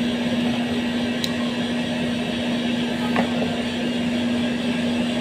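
Steady mechanical hum with one constant low tone, and a faint tick about a second in.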